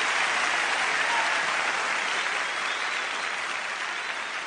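Audience applause at the end of a live song, fading steadily down.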